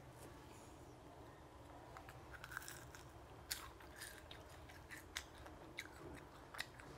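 Close-up chewing of battered, deep-fried coconut worms (palm weevil larvae): faint crisp crunches, with scattered sharp cracks of the fried crust from about two seconds in.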